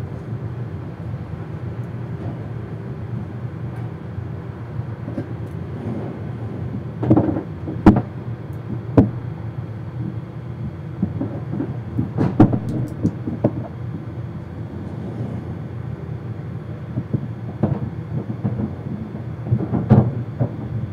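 A steady low rumble with scattered knocks and short clattering bangs, a few sharp ones in quick succession partway through, a cluster in the middle and another near the end.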